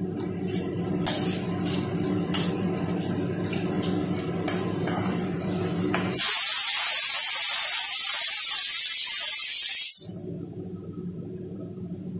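A metal spatula stirs and scrapes in a steel kadai of thin, watery gravy, with scattered clicks over a steady low hum. About six seconds in, a loud, even hiss cuts in for about four seconds and stops suddenly.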